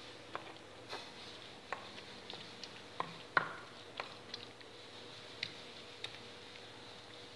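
Fried eggplant being mashed and mixed into sambal in a stone mortar (cobek): irregular light clicks and taps against the stone with soft squishing, the loudest knock about three and a half seconds in.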